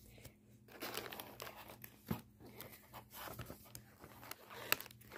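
Rustling and crinkling as a building-brick set's instruction booklet and packaging are handled, with a couple of light knocks about two seconds in and near the end.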